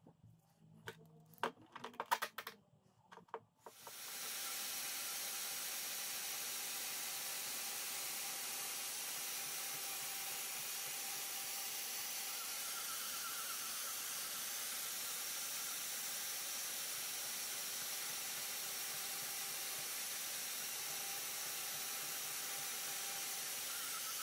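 A few light clicks of handling, then, about four seconds in, a portable bandsaw starts and runs with a steady, even hiss as it trims a glued wooden handle scale along a cleaver's tang.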